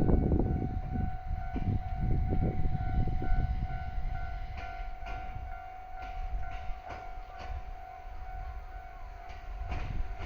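Japanese level-crossing warning bell ringing steadily while a JR 701 series electric train rumbles past and fades away. A few sharp clacks from the wheels come about halfway through.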